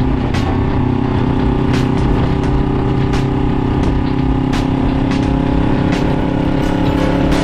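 Suzuki GS400's air-cooled parallel-twin engine running at steady revs through an SP Charao-kan exhaust with its silencer fitted, with a few sharp clicks scattered through.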